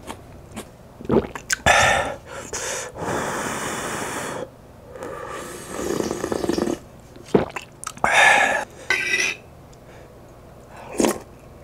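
A person slurping and gulping ramen broth drunk straight from a large bowl, in several loud breathy stretches, then sipping it from a metal spoon, with a light clink near the end.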